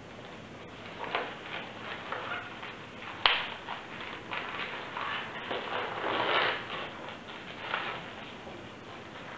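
Latex modelling balloons (160 size) being handled and twisted by hand, with irregular rubbing of the rubber surfaces, and one sharp snap about three seconds in.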